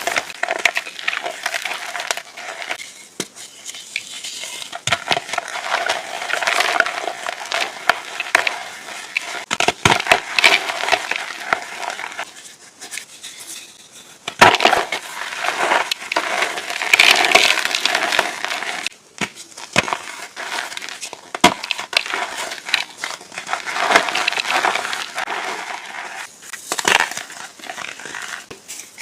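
Reformed gritty, powdery chalk being crushed and crumbled: irregular crunching with many sharp crackles, swelling and easing in waves.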